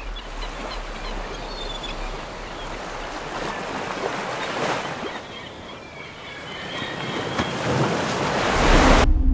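Small waves washing on a gravel beach: a steady rushing wash that swells near the end, then cuts off abruptly.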